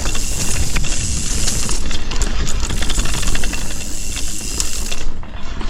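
Mountain bike being ridden along a forest singletrack: a steady noisy rush of tyres and rattling bike parts with many small clicks, over a low wind rumble on the microphone.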